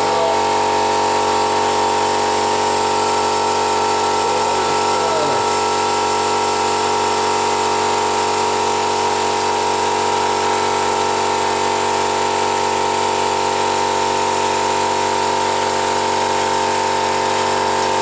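A motor-driven machine running steadily: a constant whine with hiss, unchanging throughout.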